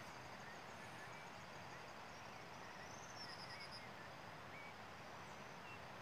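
Faint outdoor ambience: a steady hiss with scattered short bird chirps and a brief high trill about three seconds in, over faint insects trilling.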